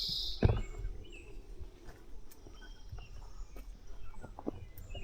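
Woodland outdoor ambience with faint bird chirps, one sharp knock about half a second in, and a few soft clicks like footsteps on the trail.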